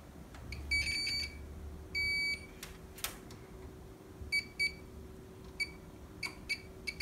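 Continuity buzzer of an EXCEL digital multimeter beeping in short, irregular beeps as the probe tips touch the contacts of TV LED backlight strips, some beeps stuttering and one longer about two seconds in. Each beep signals a closed circuit, meaning the strip connection is good. A couple of sharp probe clicks fall between the beeps.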